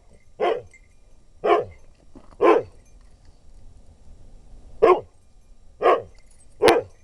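Husky dog barking: six short barks, three about a second apart, a pause, then three more.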